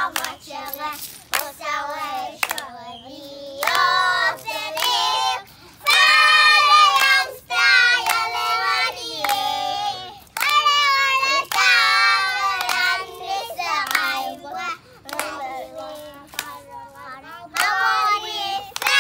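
Children singing together, with hand clapping.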